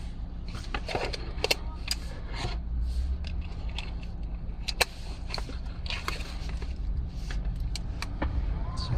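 Scattered small clicks and scrapes, irregular and a few each second, over a steady low rumble.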